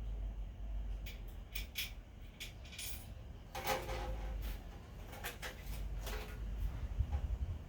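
Metal clinking and knocking as bolts and steel motor-mount parts are handled and fitted, a run of sharp clicks with a brief metallic ring about four seconds in. A low rumble of handling underneath.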